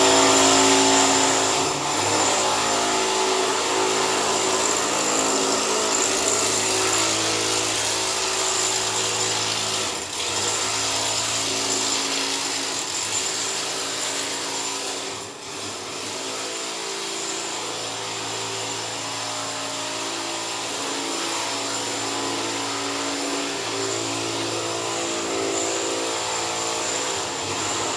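A power tool running steadily and loudly, its pitch shifting now and then, with two brief drops about ten and fifteen seconds in.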